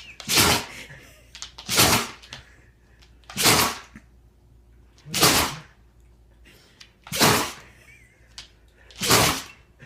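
A dog sneezing over and over in a fit, six sharp sneezes about two seconds apart, set off by water up her nose.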